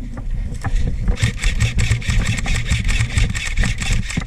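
Airsoft electric gun firing a long full-auto burst: a fast, even rattle of shots starting about a second in and stopping just before the end, over low rumble from handling and wind on the head-mounted mic.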